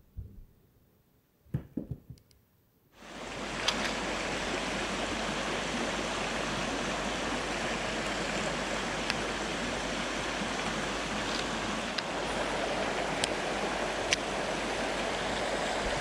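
Mountain stream rushing, a steady wash of water that fades in about three seconds in after a few soft knocks, with a few faint sharp ticks over it.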